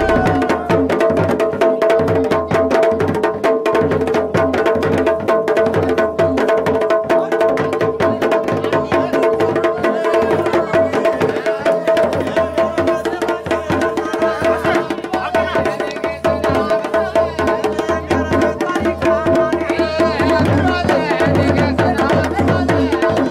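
Garhwali dhol and damau drums playing a fast, dense rhythm of strokes, over a steady held droning tone.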